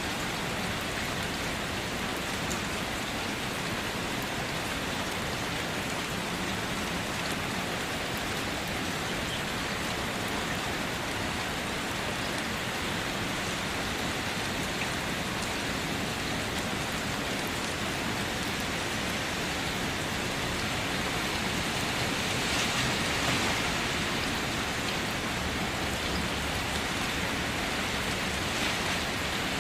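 Steady hiss of falling water with faint scattered patter, swelling slightly about three-quarters of the way through.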